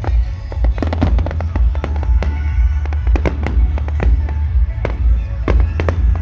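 Fireworks display: a rapid run of bangs and crackles throughout, over music with a heavy pulsing bass.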